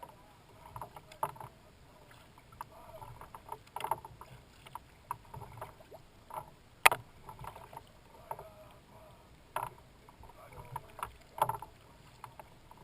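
Kayak paddling: irregular small splashes of the paddle blades dipping into the water, with one sharp knock about seven seconds in.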